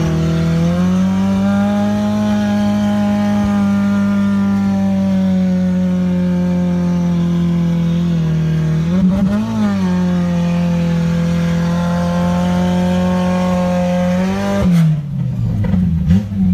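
Off-road 4x4 pickup's engine held at high revs as it claws up a steep muddy rut, the note steady for long stretches. The revs dip and flare up about eight to nine seconds in, flare again near the end, then drop.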